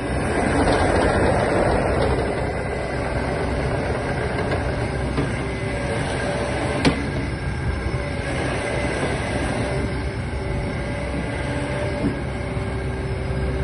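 Takeuchi TB290-2 nine-tonne excavator running and moving on its tracks: a steady low diesel rumble with the clatter and faint whine of the undercarriage and hydraulics, and a sharp click about seven seconds in.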